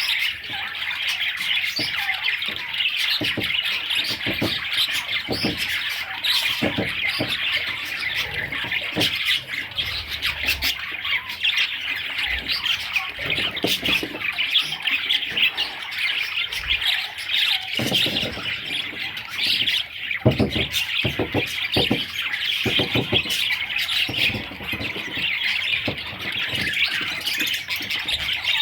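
A group of budgerigars chattering and chirping without a break, many rapid calls overlapping.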